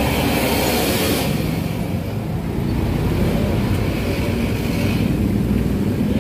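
A motor vehicle engine running steadily, with a burst of hiss over about the first second.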